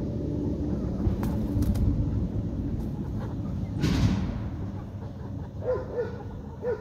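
Chickens clucking in short calls, starting about five and a half seconds in, over a steady low rumble, with a brief burst of noise about four seconds in.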